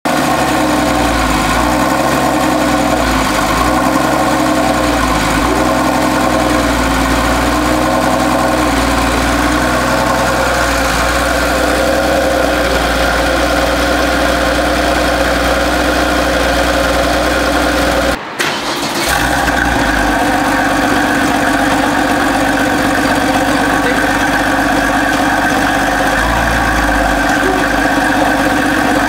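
Porsche 993 Carrera S's air-cooled flat-six engine running steadily at idle, heard at the exhaust. The sound cuts out abruptly for a moment about 18 seconds in, then the idle carries on.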